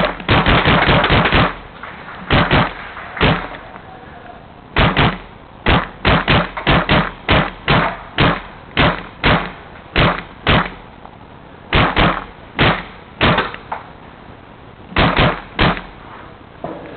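Tippmann A5 paintball marker firing close to the microphone: a quick volley at the start, then shot after shot at about three a second, broken by short pauses.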